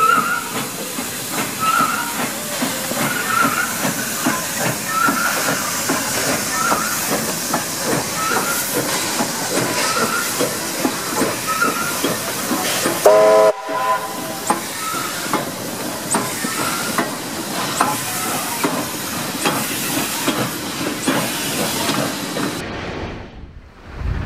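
NSW AD60 class Beyer-Garratt steam locomotive 6029 working past close by, with a steady hiss of steam, regular exhaust beats and clanking of the running gear. It gives a short whistle blast a little past halfway.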